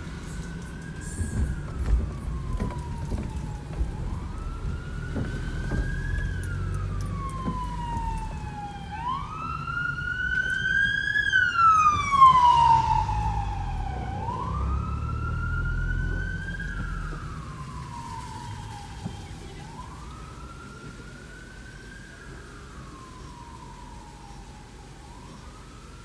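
Emergency vehicle siren wailing: each cycle rises quickly and falls slowly, repeating about every four seconds. It grows loudest about twelve seconds in and then fades away, over the low rumble of traffic.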